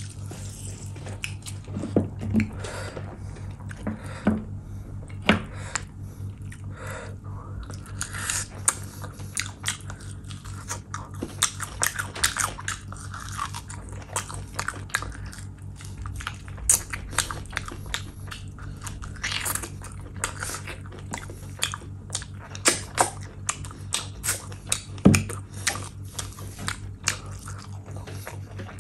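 Close-miked wet chewing and lip-smacking from eating mutton curry and rice by hand, with many short, sharp smacks and clicks, over a steady low hum.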